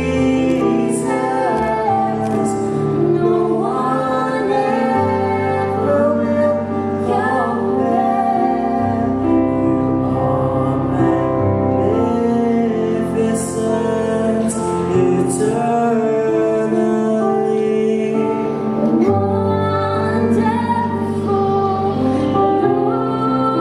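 A male and a female voice singing a duet into microphones over instrumental accompaniment, with low bass notes held for several seconds at a time.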